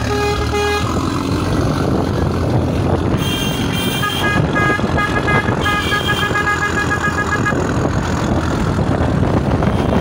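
Car horns honking in a convoy of cars: a short toot at the start, then several horns sounding together from about three seconds in, turning into rapid repeated beeps before stopping about three quarters of the way through. Under it runs steady road and engine noise from the moving car.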